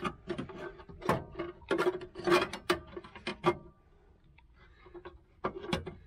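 Irregular clanks and clicks of sheet-metal parts being handled, as a steel seatbelt-retractor mounting piece is fitted into its cut-out opening and held by a clamp. The knocks come thick for about three seconds, pause, and resume briefly near the end.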